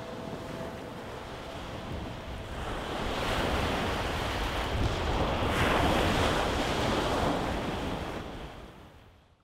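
Sea waves breaking and washing over a pebble shore, with wind; the surf swells up about three seconds in and fades out near the end.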